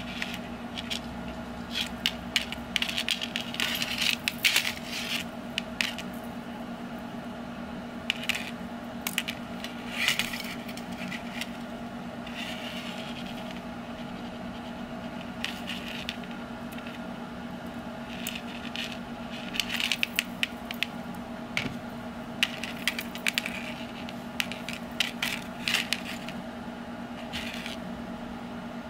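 Small metallic clicks and scrapes in irregular clusters as needle-nose pliers work the steel wire arms and snap swivels of a homemade umbrella rig, over a steady low hum.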